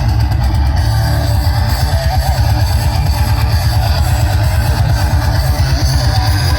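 Music with guitar over heavy bass, played very loud through a large sound system at a sound-system contest.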